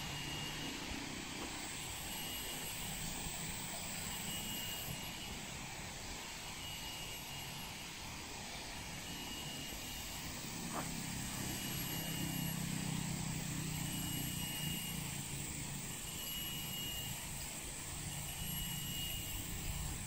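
Steady low drone of a distant engine, swelling a little near the middle, with a short high note repeating about every two seconds.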